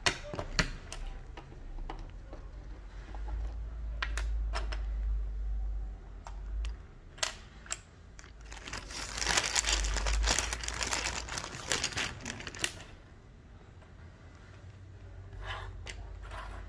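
Plastic keycaps being handled, picked up and set down: scattered sharp clicks and clacks, with a few seconds of dense clattering and rustling about halfway through.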